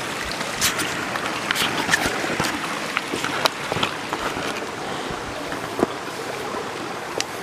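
A stream running with a steady rush, and the uneven crunch and clack of footsteps on stones and gravel.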